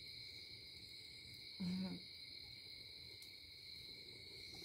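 Night insects, crickets, chirring in a steady high-pitched chorus, with one short low hum about a second and a half in.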